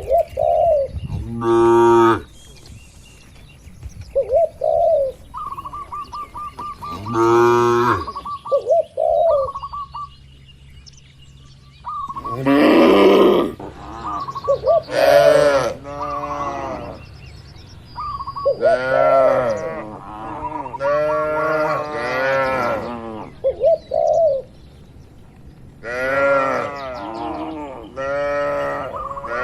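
Cattle mooing again and again, several animals calling one after another and sometimes over each other, with small birds chirping in the gaps between calls.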